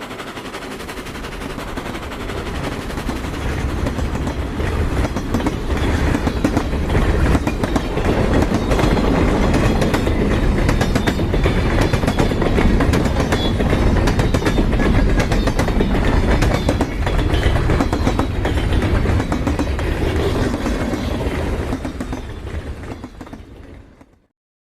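Sound effect of a giant monster train: a heavy train rumble with fast rail clatter. It builds over the first several seconds, holds, then fades over the last few seconds and cuts off.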